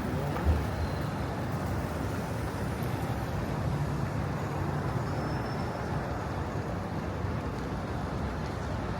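Steady city street traffic: motor vehicles running along the avenue with a low engine hum, and a short low thump about half a second in.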